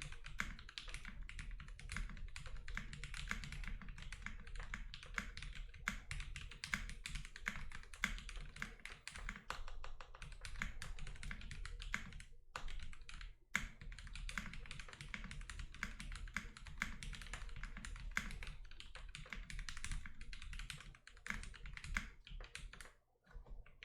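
Typing on a Zoom65 mechanical keyboard with no case foam, fitted with lubed and filmed SP-Star Meteor White linear switches. Keystrokes come in a fast, steady run, with a brief pause about halfway and fewer strokes near the end.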